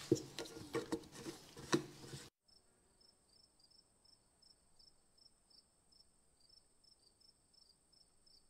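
Light knocks and clicks of a tin and tools being handled on a wooden workbench. After an abrupt cut they give way to faint cricket chirping: a steady high whine with short chirps a few times a second.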